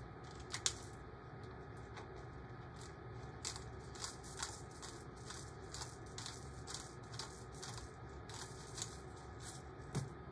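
Hand-twisted salt and pepper grinders grinding, a long irregular run of small, dry crackling clicks.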